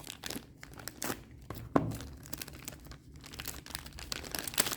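Packaging being handled: crinkling and rustling of plastic wrap and a kit box, with many small crackles and two sharper clicks, one about two seconds in and one near the end.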